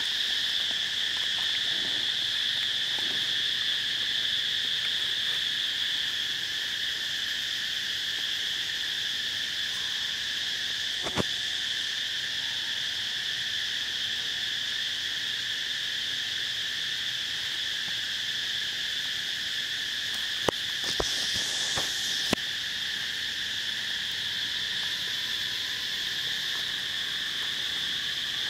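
Steady, shrill insect chorus droning without a break in two high pitches. A few sharp clicks cut through it, one near the middle and three close together about three-quarters through.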